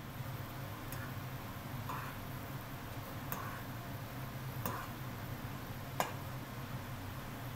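Metal fork clinking against the side of a saucepan while stirring instant ramen noodles in boiling water: five sharp taps roughly a second or so apart, the one near the end the loudest, over a steady low hum.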